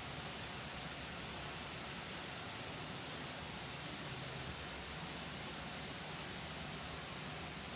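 Steady, even hiss with a faint low hum underneath; nothing else stands out.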